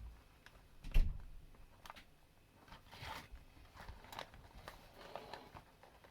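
Card-stock paper star being handled while its glued tabs are held together: scattered light rustles and clicks, with one sharp knock about a second in.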